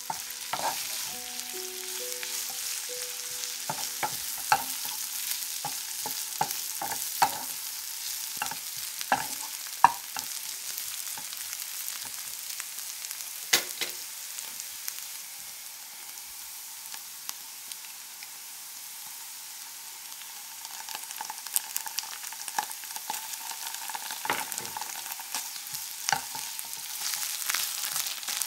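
Sliced onions sizzling in oil in a nonstick frying pan, with a wooden spatula stirring and knocking against the pan. The knocks are frequent at first, thin out in the middle, and pick up again near the end.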